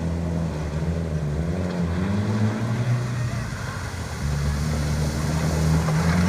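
Off-road vehicle engine running under load, its pitch rising and falling with the throttle: it climbs about two seconds in, drops back, and climbs again near the end.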